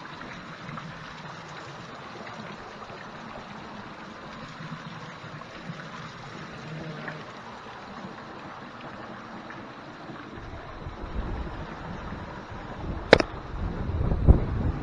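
Steady rush of water from a mountain stream running down the rock of a waterfall. From about ten seconds in, wind buffets the microphone, and a sharp knock and then a thump come near the end.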